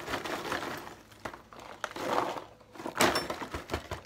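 A paper popcorn bag crinkling and popcorn crunching as a handful is stuffed into the mouth, in irregular rustling bursts with sharp crackles.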